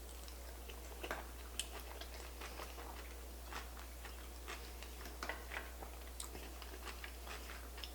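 Close-miked chewing of a soft sushi roll: faint, irregular wet mouth clicks and smacks.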